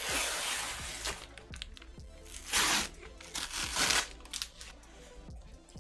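Cardboard record mailer box being torn open along its tear strip: a long rip in the first second, then two shorter rips about two and a half and three and a half seconds in, over quiet background music.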